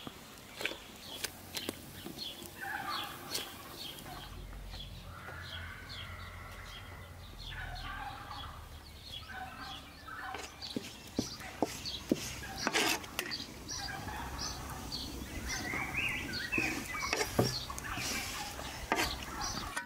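Birds calling: several bouts of rapid warbling calls over a steady run of short, high chirps, with scattered sharp clicks.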